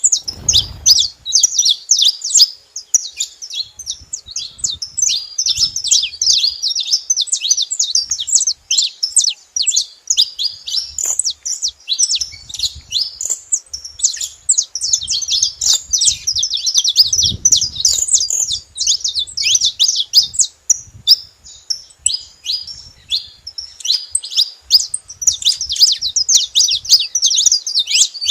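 Several saffron finches chirping together: a dense, nearly unbroken chatter of quick, high-pitched chirps from more than one bird.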